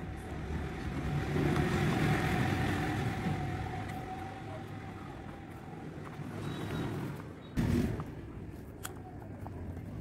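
Steady background rumble and hiss with a faint held tone, swelling about a second in and then fading. A short, loud knock comes about three-quarters of the way through, then a small click.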